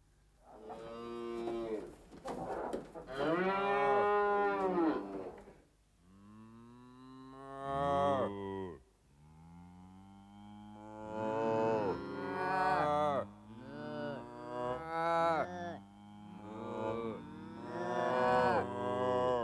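Cattle mooing: a series of long lowing calls, one after another, some overlapping as though from more than one cow.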